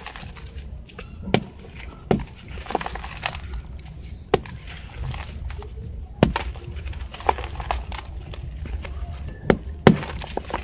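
Dry sand-cement lumps crushed and crumbled by hand over a heap of cement powder: gritty crunching and sifting, with a sharp crack every second or two as lumps snap apart.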